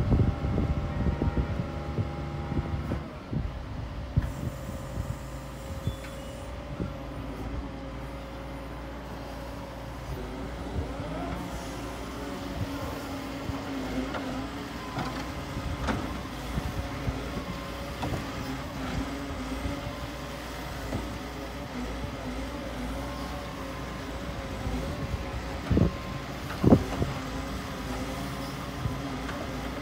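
Doosan DX140W wheeled hydraulic excavator's diesel engine running under working load as it digs and swings, louder for the first few seconds, its pitch rising and falling as the hydraulics are worked. Two sharp knocks near the end.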